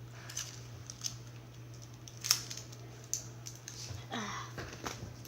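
Scattered light clicks and handling noises over a steady low hum, with a brief vocal sound about four seconds in.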